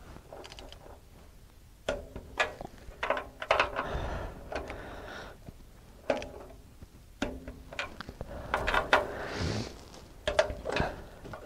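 Click-type torque wrench ratcheting on the bolts of a steel sawmill frame: short runs of sharp ratchet clicks with pauses between, as the bolts are torqued down.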